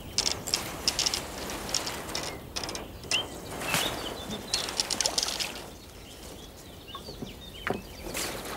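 Bream splashing and thrashing at the water surface in short bursts as it is drawn toward the landing net, settling down after about five seconds, with birds chirping now and then.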